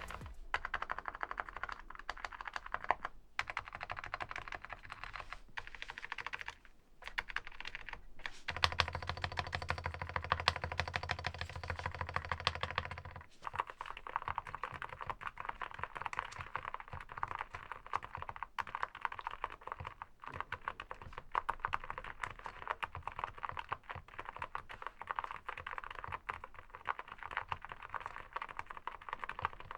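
Continuous fast typing on an SPM AL87A full-aluminium 87-key mechanical keyboard, a dense stream of keystroke clicks with a brief pause about seven seconds in.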